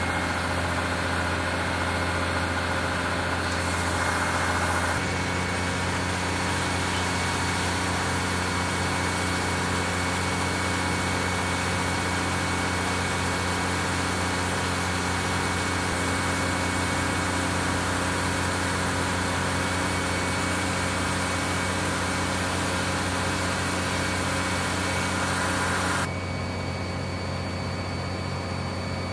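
An aviation fuel truck's engine runs steadily at idle during a refuel, giving a constant low hum with a hiss over it. The hiss thins out near the end.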